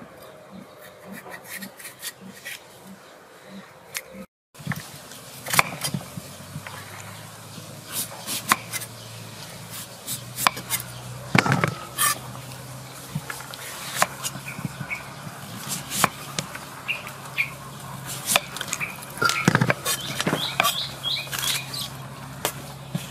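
Kitchen knife scraping the seeds out of green papaya and cutting its flesh on a wooden chopping board: a run of irregular knocks and scrapes, broken by a brief drop-out about four seconds in.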